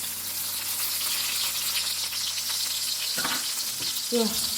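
Onions frying in hot oil in a pan, a steady sizzle with fine crackling, and a light knock about three seconds in.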